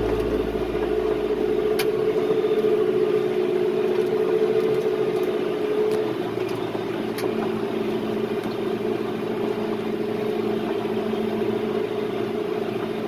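John Deere 5100E tractor's diesel engine running steadily, its note shifting slightly about halfway through.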